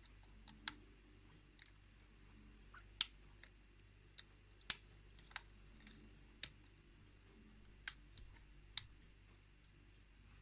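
Faint, irregular metallic clicks from a lock pick working the pins of a challenge lock under tension, with pins clicking as they set; about ten clicks, a couple louder than the rest.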